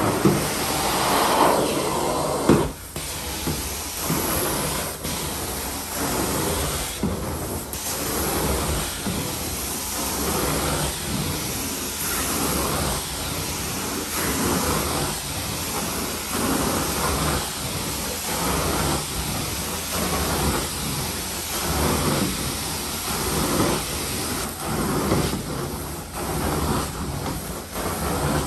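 Carpet-cleaning extraction wand hissing with spray and suction, swelling and easing in repeated strokes every couple of seconds as it is pushed and pulled across the carpet.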